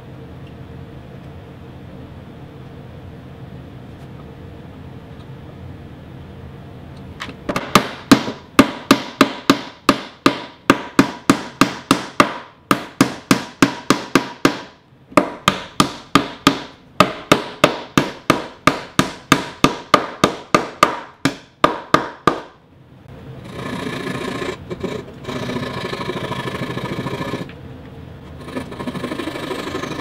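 Mallet knocking homemade cherry Domino tenons into the sides of a plywood drawer box: a quick run of sharp knocks, about three a second, starting several seconds in, with two short pauses, and stopping about three-quarters of the way through. Then a steady scraping sound as the protruding tenon ends are worked flush.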